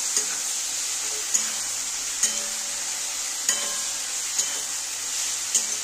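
Potatoes and yardlong beans sizzling in oil with spice paste in a metal karahi, being stir-fried (kosha) with a metal spatula. The steady sizzle is broken by a few sharp scrapes and knocks of the spatula against the pan.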